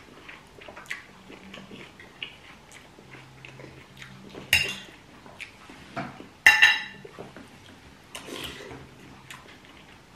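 Cutlery clinking and scraping on plates and bowls during a meal: scattered small taps, with two louder ringing clinks about four and a half and six and a half seconds in.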